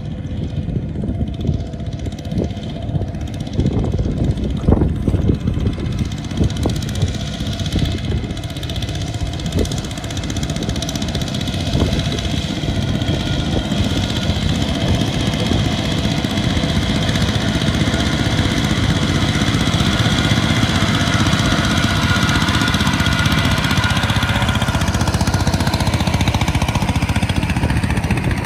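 Small single-cylinder diesel farm tractors running under load in deep mud, a rapid chugging with uneven knocks, growing steadier and louder about halfway through as one tractor comes close.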